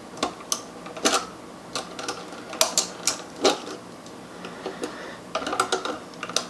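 Pliers clicking and scraping against electrical ground wires as they are twisted together: a string of irregular, sharp metal clicks.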